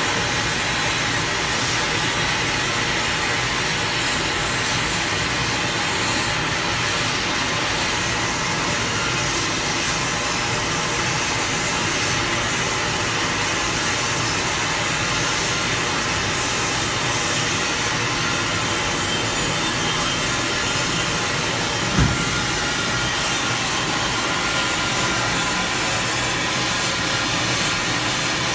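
Steady, even hissing crackle of hot metalwork, with a single short thump about 22 seconds in.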